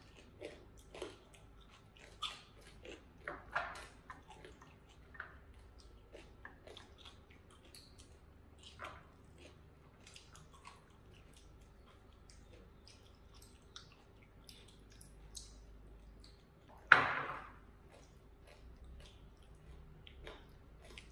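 People eating with chopsticks: chewing and mouth sounds with scattered light clicks of chopsticks against ceramic bowls and plates, and one louder short noise about 17 seconds in.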